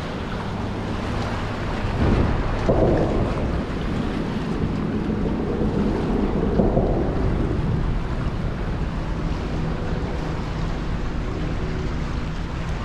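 Wind buffeting the microphone: a steady, low, noisy rumble with louder gusts about two seconds in and again around seven seconds in.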